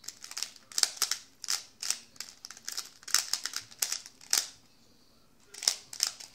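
Plastic Rubik's cube having its layers twisted rapidly to scramble it: a quick, irregular run of clicks and clacks, with a pause of about a second past the middle before the turning resumes.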